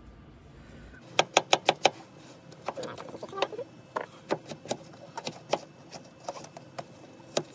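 Kitchen knife chopping watermelon into cubes on a cutting board: a quick run of sharp knocks of the blade on the board about a second in, then scattered single knocks.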